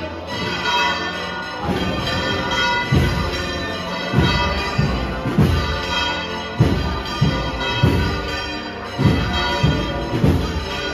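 Wind band of a religious procession playing a slow processional march, sustained brass and reed chords with low drum beats entering about two seconds in and recurring every half second or so.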